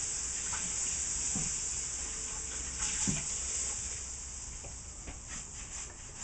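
Salmon frying in butter in a sauté pan, a steady high sizzle that eases off somewhat after the middle.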